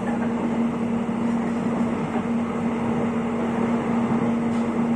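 Airport rail link electric train running, heard inside the carriage: a steady rumble of wheels and rails with a constant low hum.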